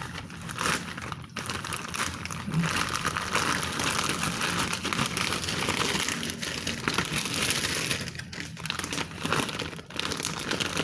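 Crinkly packaging being crumpled and pulled about by hand while it is opened to get the tripod out, a dense rustling crinkle that drops away briefly now and then.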